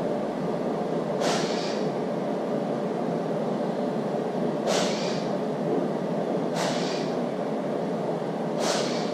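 A steady drone of workshop background noise, with four short hisses over it, each fading away within about half a second; the first comes about a second in and the last near the end.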